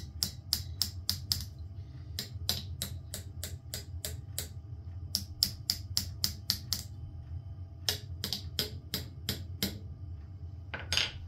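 Hammer tapping a small aluminum plate clamped in a vise to bend it over: quick light metallic taps, about four a second, in four runs with short pauses between, and one last tap near the end.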